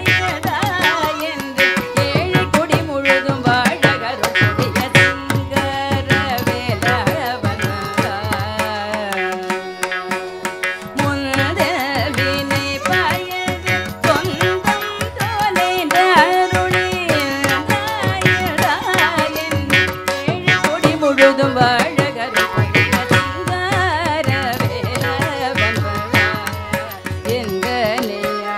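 Carnatic music: a woman's voice sings a Tamil song with violin and a steady drone, while mridangam drums play fast strokes underneath. The drums thin out for a couple of seconds about nine seconds in, then come back in.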